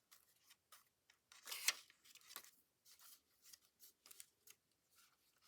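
Faint rustling and light ticks of a handmade paper journal being handled, its pages and cardstock moved and turned, with one louder brief swish of paper about a second and a half in.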